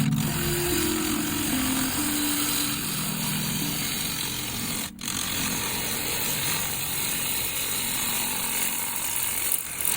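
A power tool working plum wood, a steady rough noise with a short break about five seconds in.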